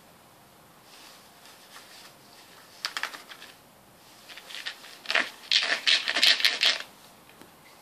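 A ferret scrabbling about inside a sandal, making dry scratching and rustling against the shoe. A short burst comes about three seconds in, and a louder run of scratching follows in the second half.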